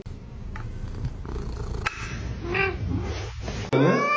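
A domestic cat purring with a low, steady rumble. A short call follows, and near the end a louder cat meow starts, rising in pitch.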